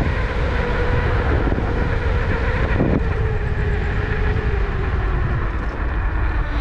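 A vehicle in motion: a steady rumble and wind noise with a motor whine whose pitch slowly falls, as if easing off speed.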